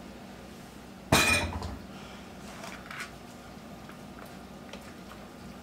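One sharp, ringing clink of a dish or cup being set down on a hard counter about a second in. It is followed by a few faint clicks of a wooden spoon tossing salad in a mixing bowl.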